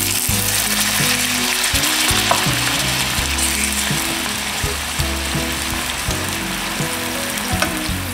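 Chicken stock sizzling in a hot oiled skillet as it is poured in and stirred with a wooden spoon, with a few light clicks of the spoon. Background music with low held notes plays underneath.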